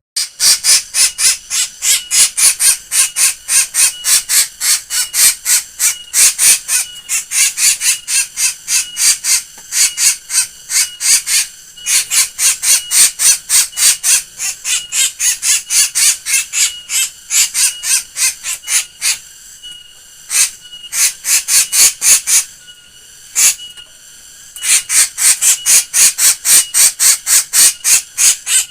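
A black bird giving a rapid, steady string of short shrill calls, about four a second, a strange laugh-like cackle, broken by two short pauses near the middle.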